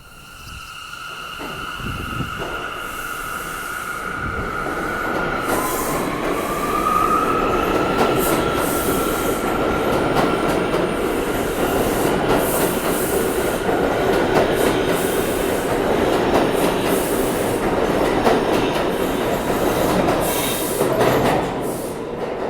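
R179 subway train moving through the station, its electric traction motors giving a steady whine that dips and then climbs again about six seconds in. The noise builds over the first several seconds and stays loud, with wheels clicking over rail joints throughout.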